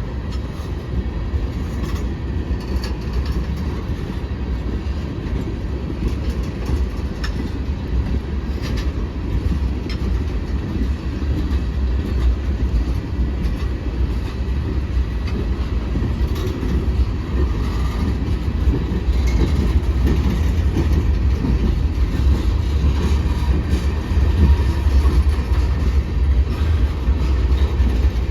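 Freight train cars, mostly tank cars, rolling past with a steady deep rumble and scattered clicks from the wheels over the rails, growing slightly louder near the end.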